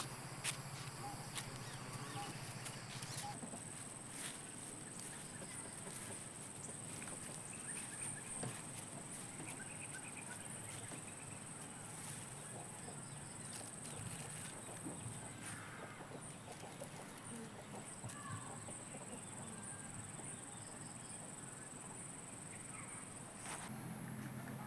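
Faint outdoor ambience with occasional animal calls, typical of fowl clucking, and scattered light clicks and rustles. A steady high-pitched whine sets in about three seconds in and stops shortly before the end.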